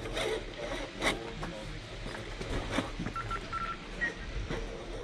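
A quick run of three short electronic beeps, then a single higher beep, amid scattered clicks and knocks.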